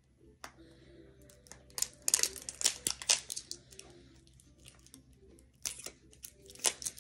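Fingers picking and tearing at the flap of a small cardboard eyeshadow box: scattered crackles and clicks, busiest about two to three seconds in, with a few more near the end.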